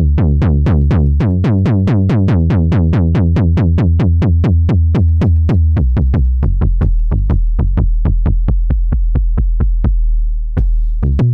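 Native Instruments Massive software synth playing a deep sub bass patch in rapid repeated notes, about five a second. Each note has a short clicky knock at its attack. About halfway through, the bass drops to a lower pitch.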